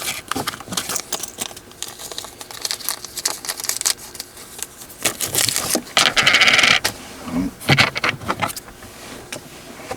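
Small metal hardware clinking and rattling: steel washers and a lock nut being picked up and handled, a string of light clicks with a denser scraping stretch about six seconds in.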